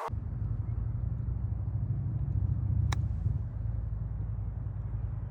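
Golf cart driving along: a steady low rumble, with one sharp click about three seconds in.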